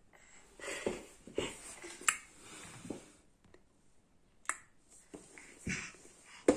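A nine-month-old baby on a wooden floor: a few sharp clicks and taps among soft, short breathy mouth sounds.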